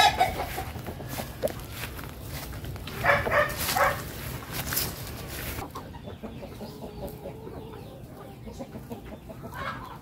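Chickens clucking and calling, with a burst of louder calls about three to four seconds in and quieter scattered clucking after that.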